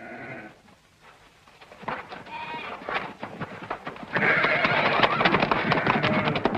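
A flock of sheep bleating, with the drumming hooves of several horses galloping off. The sound swells loudly about four seconds in.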